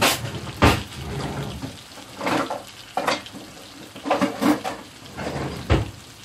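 Diced lamb liver frying in foaming hot butter: a steady sizzle broken by about six sharp, irregular crackles and pops, the moisture of the freshly added liver spattering in the fat.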